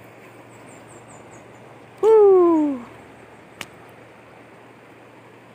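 A man's single drawn-out shout, falling in pitch, about two seconds in, over a steady hiss of river water. A faint click follows about a second later.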